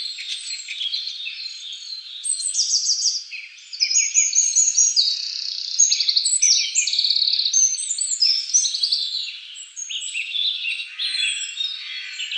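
Dense chorus of high-pitched animal calls: many overlapping chirps, rapid trills and short falling whistles running on without pause.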